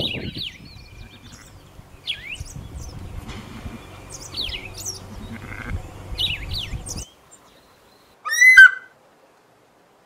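Songbirds chirping in quick, high, downward-sweeping notes over a low wind rumble. The sound cuts off suddenly about seven seconds in, and about a second later comes one short, loud, quavering animal call.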